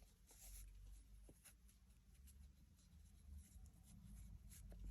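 Faint rustling and small ticks of hands handling crafting supplies and their packaging, over low room hum.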